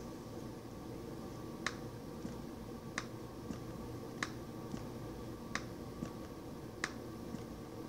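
Laptop touchpad clicking about five times, roughly every second and a quarter, each sharp click followed by a fainter one half a second later, as shapes are clicked and dragged. A steady low hum sits underneath.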